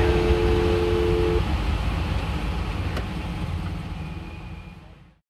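Traffic noise, a steady low rumble with hiss. A steady two-note tone is held over it for about the first second and a half. The whole fades out near the end.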